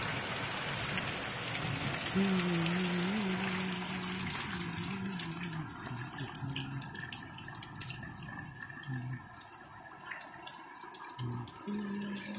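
Heavy rain falling on trees and the ground, a steady hiss that thins after about five seconds into scattered drops and drips. A person's voice sounds now and then.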